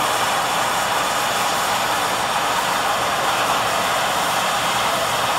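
Steady rushing hiss of a gas torch flame held on the car body, melting lead body filler out of the seams.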